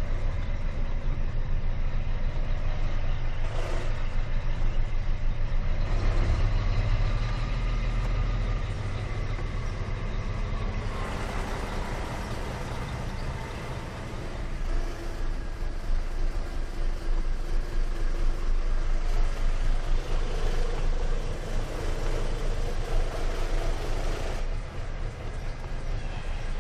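Scania R420 truck's six-cylinder diesel engine running at low speed, heard from inside the cab as a steady low rumble.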